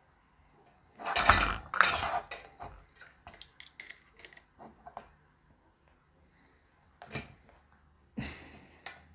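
Clattering and clinking of small metal tools and fan parts being handled on a work table. A loud burst of knocks comes about a second in, then scattered light clicks, and two more knocks near the end.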